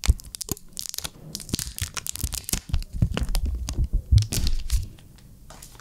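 Protective plastic film being peeled off a new smartphone, crackling and crinkling in quick irregular bursts, stopping about five seconds in.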